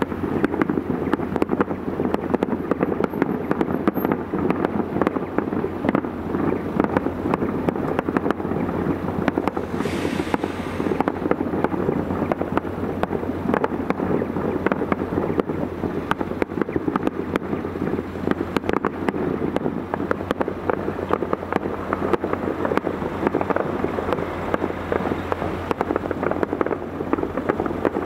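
Distant fireworks display: a dense, continuous run of cracks and bangs from bursting shells, over a steady low hum. A brief hiss comes about ten seconds in.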